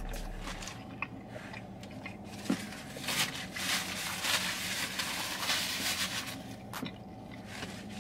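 A person chewing a mouthful of burger, with scattered wet mouth clicks, and a stretch of crackly paper-wrapper rustling about three seconds in.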